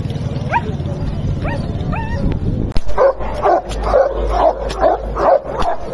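A dog gives a few short rising whines or yelps, then a large dog barks repeatedly and fast, about three barks a second.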